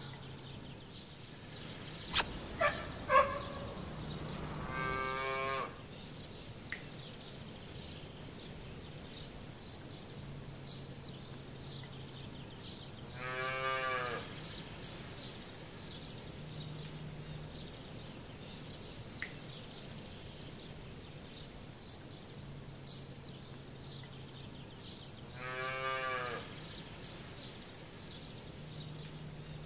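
Three drawn-out animal calls, each about a second long and spaced several seconds apart, over a faint fast chirping and a low hum. A few short sounds come before the first call.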